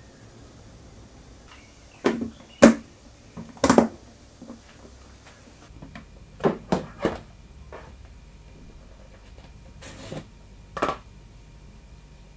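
Sharp clicks and knocks of hard plastic being handled: a clip-lock food container's lid and a flour canister's screw lid taken off and set down on a table, in short clusters of two or three.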